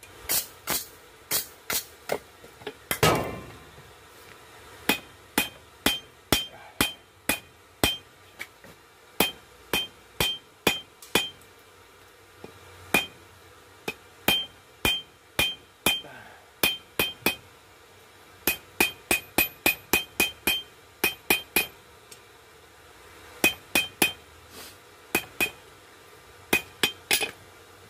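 Hand hammer striking a hot knife blade on an anvil, forging coil-spring steel. The blows come in runs of about two a second with short pauses between, each with a short metallic ring.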